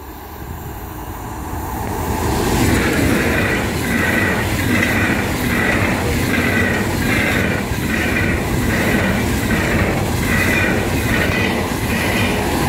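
ICE high-speed train approaching and passing at speed: the rush of wheels on rail builds over the first two seconds, then holds steady with a regular pulsing, about three beats every two seconds, as the carriages go by.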